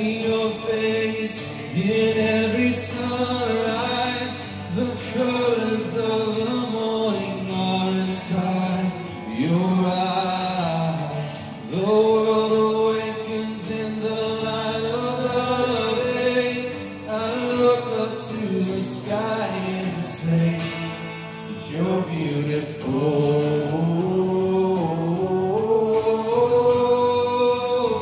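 Live worship song: a man singing lead with held, sliding notes over a band's accompaniment.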